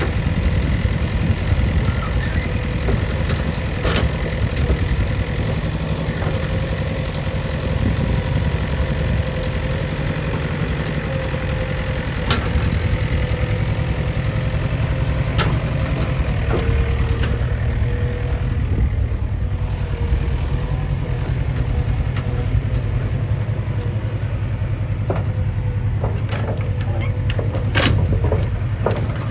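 JCB 3DX backhoe loader's diesel engine running steadily, with a few sharp knocks scattered through.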